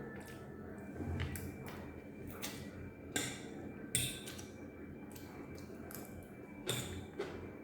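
Close-up eating sounds of someone chewing noodles: irregular wet clicks and ticks of the mouth, the loudest about three, four and seven seconds in.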